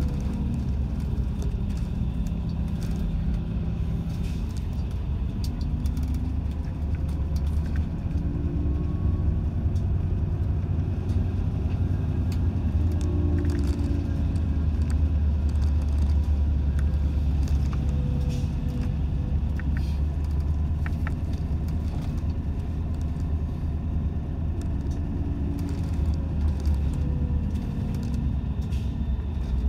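Steady low rumble of a route bus's engine and tyres heard from inside the passenger cabin, with scattered faint ticks and rattles.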